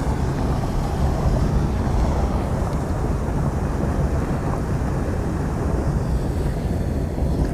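Wind buffeting the microphone, a steady low rumble with no distinct events.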